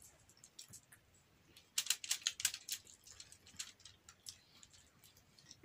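A run of light, irregular clicks and ticks, thickest about two seconds in, then thinning out.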